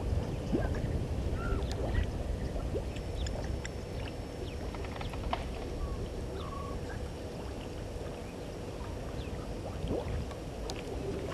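Outdoor bush ambience at an open microphone: a steady low rumbling noise, with scattered short bird chirps and small clicks over it.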